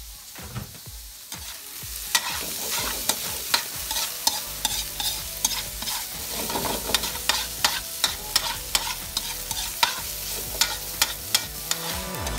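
Food frying in a metal wok, sizzling, while a metal spatula stirs it, scraping and clinking against the pan in quick repeated strokes, about three a second. The sizzling and stirring get louder about two seconds in.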